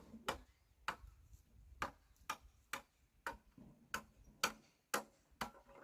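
Regular sharp knocks, about two a second, evenly paced like steady tapping or striking.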